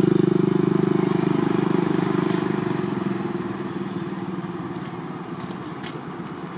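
A motor vehicle's engine running on the road, loudest at the start and fading steadily as it moves away.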